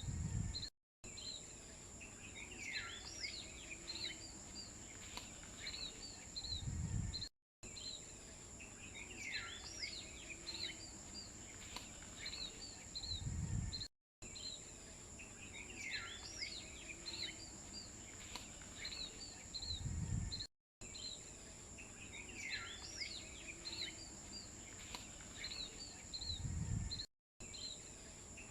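Birds chirping over a steady high-pitched tone, on a short loop that repeats about every six and a half seconds. A low rumble comes just before a brief dropout at each repeat.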